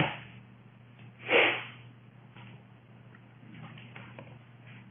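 Quiet room tone over a steady low electrical hum, with a short breathy puff into the microphone about a second and a half in and faint computer-keyboard clicks later on.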